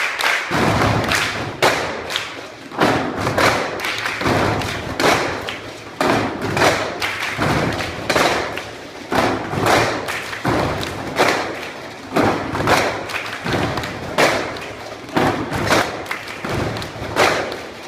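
Percussion ensemble drumming on tin cans: strikes in a steady, driving rhythm.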